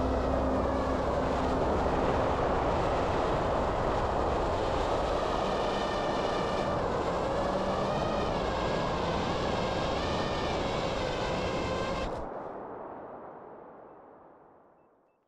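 FPV quadcopter's motors and propellers whining over a rush of wind noise, the whine bending up and down in pitch as the throttle changes. About twelve seconds in the sound turns muffled and fades out.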